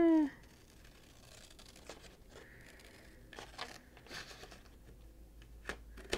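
Scissors cutting slowly through an old yearbook page: a handful of faint, scattered snips and paper rustles.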